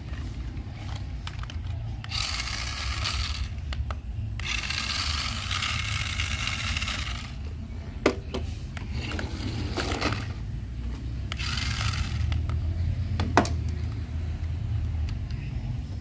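The small electric motor and plastic gearbox of a toy remote-control racing car whir in four bursts as its wheels are run from the transmitter. Two sharp clicks come about halfway through and again near the end.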